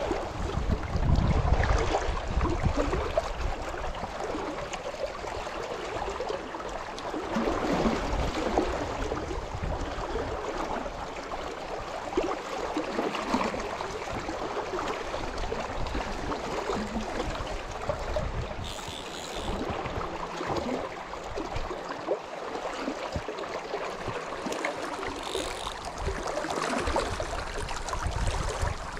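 Shallow, fast river current running over a rocky riffle: a steady rush of water close by, with some low rumble near the start and again near the end.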